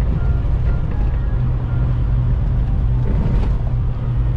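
Steady low drone of a semi truck's diesel engine and road noise heard from inside the cab while driving, with faint music along with it.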